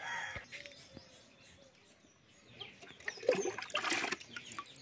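Water sloshing and splashing as a plastic mug is scooped through a plastic bucket of water and lifted out, starting a little before three seconds in and lasting just over a second.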